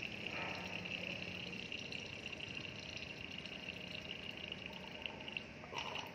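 Diesel fuel pouring steadily from a pump hose into a barge's steel fuel tank as the tank nears full, with a low steady hum underneath.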